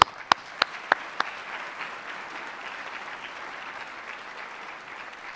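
Audience applauding steadily in a hall. In the first second or so, a handful of sharp, loud hand claps come from someone clapping close to the microphone.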